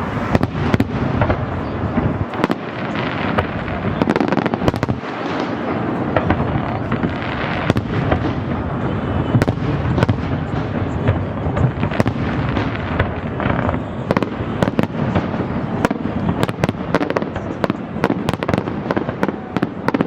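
Fireworks going off without a break: many sharp bangs and crackles overlapping in a dense, continuous barrage.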